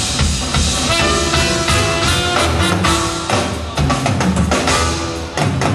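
Live band music: trumpet and violin playing over drums, with cello and guitar in the band; held notes ride over a steady drum beat.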